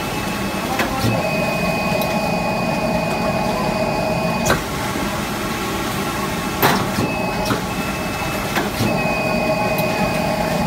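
Sleeve placket folding machine with strong suction running: a steady hum with a high whine, broken by two sharp clacks about four and a half and six and a half seconds in as the folding press works, with a few lighter clicks around them.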